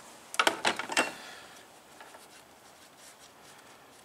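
A quick run of sharp clacks about half a second in, as the removed aluminium EGR valve and its plastic coolant elbow knock and click in gloved hands, followed by faint rubbing.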